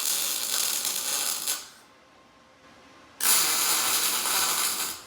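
Welding arc burning in two tack welds on 14-gauge sheet metal, each a steady hiss of about two seconds, with a short pause between them.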